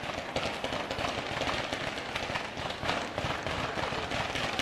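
Fireworks crackling and popping, a dense, unbroken run of small sharp bangs.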